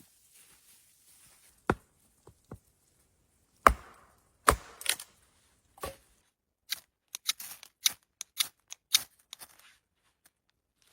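A series of sharp knocks: a few heavy strikes, the loudest about four seconds in, then a quicker run of lighter clicks and snaps over the second half.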